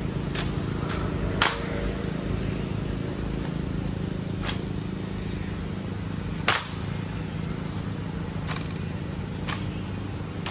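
Sharp clacks and knocks from an honor guard's rifle drill, about seven separate strikes spread irregularly over a steady low background rumble. The loudest strike comes a little past the middle.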